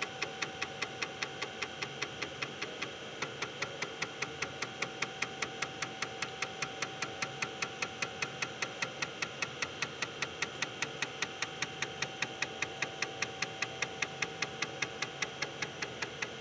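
IBM PS/2 Model 30 floppy drive head stepping track by track during a diagnostic seek test: an even run of sharp clicks at about four a second, with one brief pause about three seconds in, over a steady hum.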